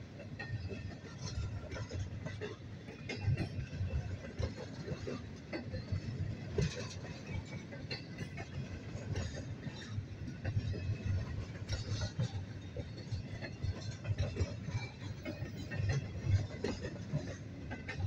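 Double-stack freight train of well cars rolling past at speed: a steady low rumble of wheels on rail, with irregular clanks and knocks from the cars and trucks.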